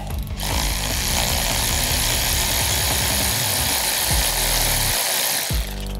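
Cordless electric ratchet with a spark plug socket running steadily, spinning a spark plug out of the cylinder head. It starts about half a second in and cuts off about half a second before the end.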